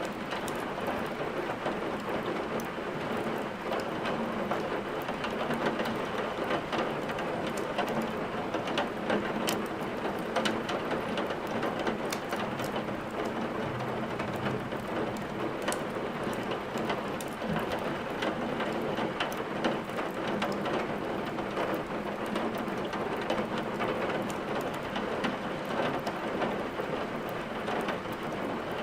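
Steady rain hiss mixed with scattered sharp crackles of burning firewood in a fireplace.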